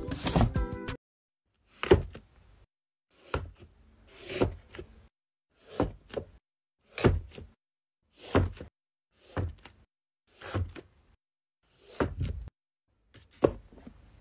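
Hardcover books being slid into place on a shelf one after another, each a short scrape ending in a soft thump, about one a second. A moment of music is heard before the first book.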